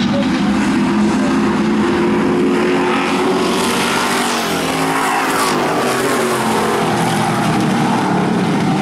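A pack of Super Street stock cars running together around a short asphalt oval, several engines heard at once. About halfway through, cars go by close and their engine pitch sweeps down as they pass.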